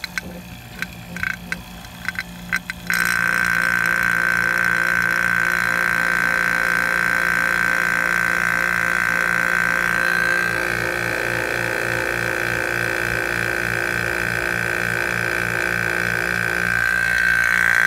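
Electric Harbor Freight vacuum pump running while it draws vacuum on a glass jar to suck transmission fluid out of a vehicle. For the first few seconds it runs with irregular clicks and sputters. It then settles into a louder steady whine with a high tone over a low hum, which dips slightly about ten seconds in.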